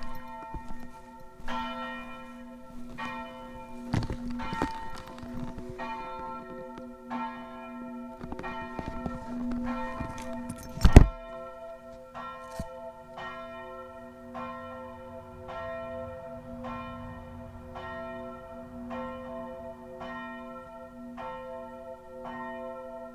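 Church bells ringing, a steady run of strokes about one and a half a second, each note hanging on. A loud thump cuts in a little before halfway.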